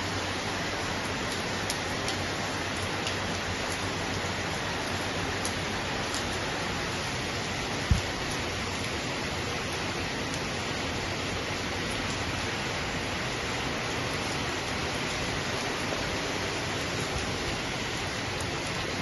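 Heavy cyclone rain falling steadily, an even hiss, with a single short thump about eight seconds in.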